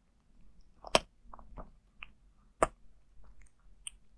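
Close-miked cat crunching dry kibble from a bowl: irregular crunches and clicks, with two louder sharp cracks, one about a second in and one a little past halfway.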